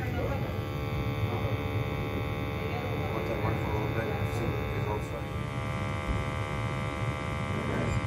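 Steady electric hum over a low rumble from a fired Williamson gas boiler running while a handheld combustion analyzer's sampling pump draws flue gas. The hum holds even throughout, with a few faint ticks.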